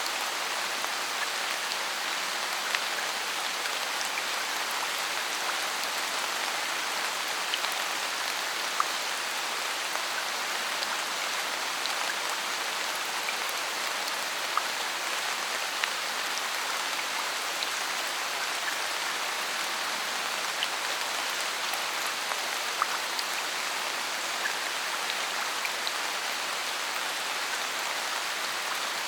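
Steady rain falling in a forest, an even hiss with scattered individual drops ticking now and then.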